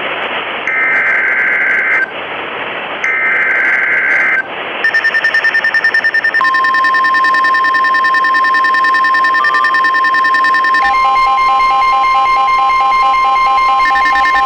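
Emergency Alert System S.A.M.E. header: two short two-tone data bursts about a second apart, the end of the three-burst code that opens an alert. About five seconds in, a steady alert tone starts, pulsing briefly, then holds as more tones are layered on, with another added about eleven seconds in.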